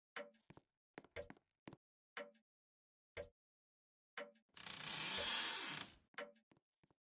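A person's wheezing laughter: a string of short, squeaky wheezes, then one long breathy gasp lasting about a second and a half a little after halfway through.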